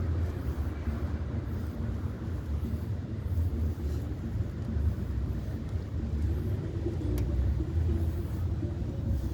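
Low, steady rumble of road traffic, with a faint engine hum in the second half and a single sharp click about seven seconds in.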